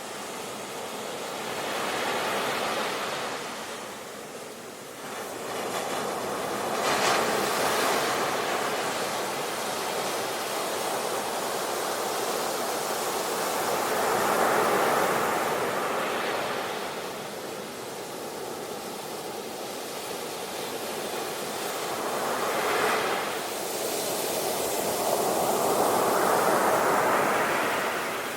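Ocean waves breaking and washing on the shore, the surf swelling and easing every few seconds.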